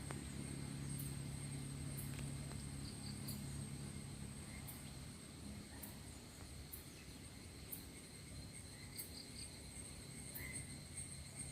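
Faint outdoor ambience: a low, steady engine-like hum from a distant vehicle that fades out about five seconds in, over a thin, high insect buzz with regular faint ticks.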